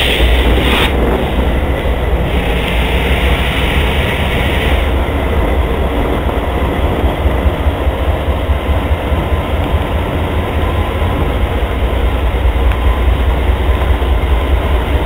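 GE Dash 8 diesel locomotives of a CSX freight train passing close by: a steady, loud engine rumble with wheel-on-rail noise. A rushing hiss comes in briefly about two to five seconds in.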